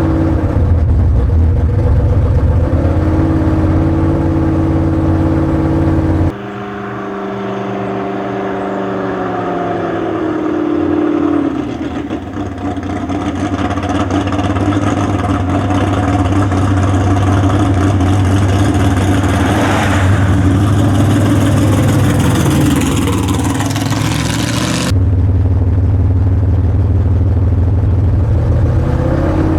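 Drag car's big-block Chevy V8 with a tunnel ram running loud in edited clips. It idles with a steady lope, then after an abrupt cut its pitch falls and then climbs under power, and near the end another cut brings back the idle.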